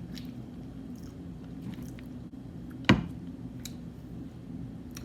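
A person chewing fast food at close range, with soft wet mouth sounds and faint clicks. One sharper click or crunch comes about three seconds in. A faint steady hum runs underneath.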